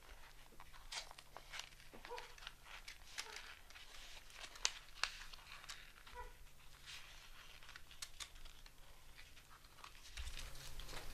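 Faint, scattered crinkling and rustling of a paper playing card being handled, with a couple of sharper clicks around the middle.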